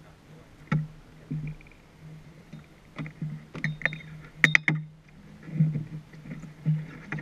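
Sports prototype race car's engine idling at a standstill, a low steady hum, while a person moves about in the cockpit beside the on-board camera, giving a series of sharp knocks and clunks; the loudest cluster comes about four and a half seconds in.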